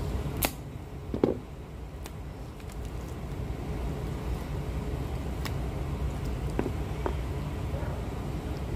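Knife and hands working a raw chicken carcass on a plastic cutting board: a few scattered clicks and soft knocks, the loudest just over a second in, over a steady low background rumble.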